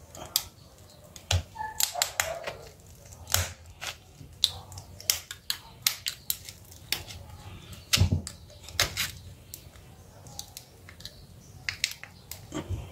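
Irregular sharp clicks and snaps of a thin metal pry tool working against the frame and parts of an Asus Z008D smartphone being taken apart, a dozen or more, some louder than others, with the loudest pair about eight seconds in.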